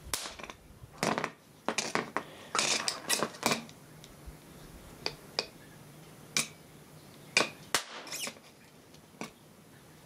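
Irregular clicks, taps and light scrapes, bunched together over the first few seconds and then single ones about a second apart. A pole-mounted probe and its clip lead are knocking and dragging a circuit board across a plastic sheet; the clip has been welded to the board by the capacitor discharge.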